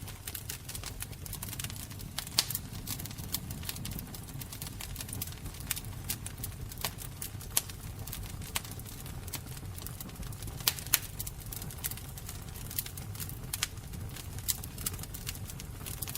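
Fire crackling: irregular sharp pops and snaps, a few louder than the rest, over a steady low rumble.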